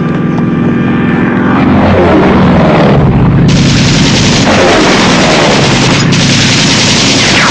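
Piston engine of a low-flying biplane droning overhead. About three and a half seconds in, a loud, dense rattle of machine-gun fire and blasts comes in and keeps on under the engine.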